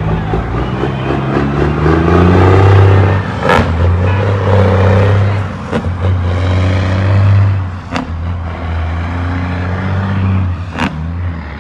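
Diesel semi tractor hauling a loaded dump trailer pulling away and accelerating through the gears, the engine note climbing and dropping back at each shift, with four sharp knocks along the way. It grows quieter as the truck moves off down the road.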